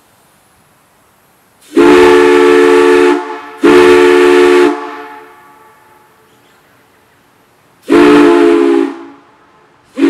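A 6-inch Schaeffer & Budenberg chime whistle blown on compressed air, sounding a steady multi-note chord in three blasts of about a second each: two back to back, then a third near the end.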